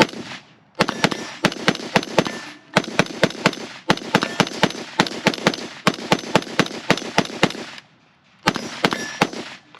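Springfield Armory Hellion 5.56 bullpup rifle fired in rapid semi-automatic strings, about three to four shots a second. One shot comes at the start, then a long string of roughly two dozen shots, then a brief pause and a short burst of a few more near the end.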